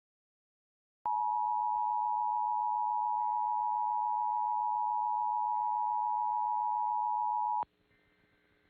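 Emergency Alert System attention signal: a steady two-tone alert comes on about a second in and cuts off abruptly about six and a half seconds later. It announces the start of an emergency alert, here a tornado watch.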